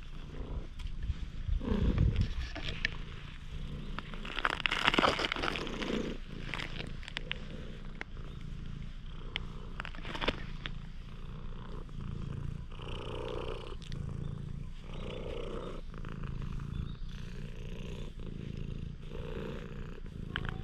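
Domestic cat purring steadily, close up, while it is stroked: a low rhythmic rumble, the sign of a relaxed, content cat. A louder burst comes about two seconds in and another around five seconds.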